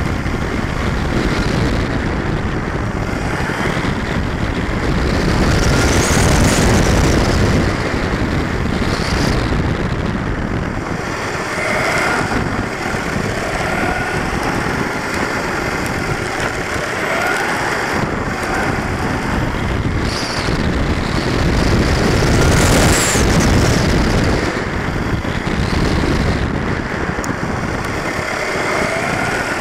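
Onboard sound of a 1/10 scale RC short course truck lapping an asphalt track, heard from a camera mounted on the truck. A steady rush of wind and tyre noise runs throughout, with a faint whine that rises and falls as the truck speeds up and slows for corners.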